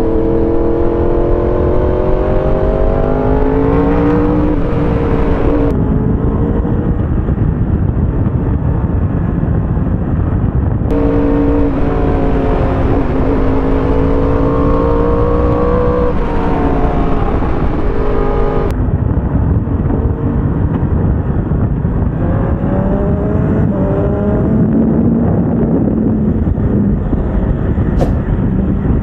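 Motorcycle engine under way, its pitch climbing and dropping again and again as the rider opens the throttle and eases off through the bends. A steady rush of wind noise runs underneath.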